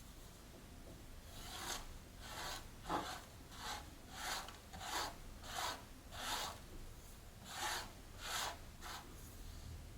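About ten rubbing or scraping strokes in a steady rhythm, a little under a second apart, made by hand while a small plant is being repotted.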